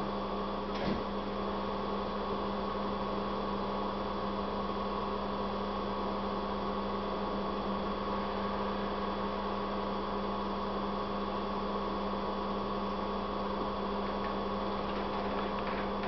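Steady electrical hum that does not change, with a faint click about a second in.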